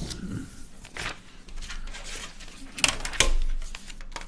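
Printed paper sheets being shuffled and laid down on a desk: rustling with a few light taps, loudest about three seconds in.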